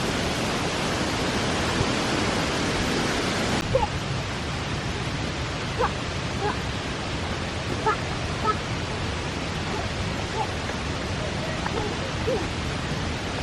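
Steady rushing noise of a waterfall's falling water, dulling slightly about three and a half seconds in.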